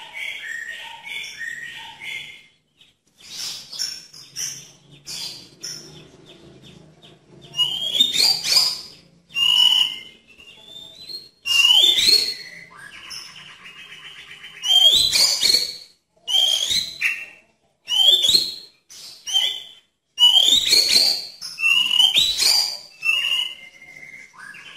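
White-rumped shama (murai batu) singing. It opens with a quick run of chattering notes, then from about eight seconds in gives loud phrases of sharp rising and falling notes every second or two, one of them a fast buzzing trill.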